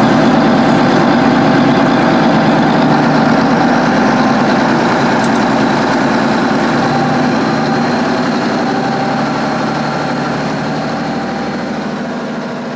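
Allis-Chalmers 8550 four-wheel-drive tractor's turbocharged 731 cubic inch engine running steadily, with a thin high whine above it. The sound fades gradually over the second half.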